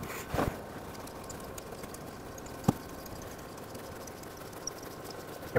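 A few isolated, light clicks and knocks of a socket wrench on metal as a broken exhaust manifold stud, with a nut welded onto it, is backed out of the cylinder head.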